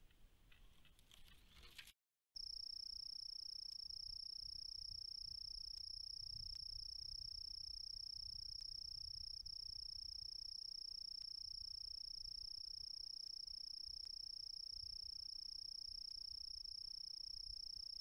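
Steady high-pitched electronic whine from a motion-sensing trail camera recording in night infrared mode, with a fainter, higher whine above it. It starts suddenly about two seconds in, after a brief dropout, and does not change.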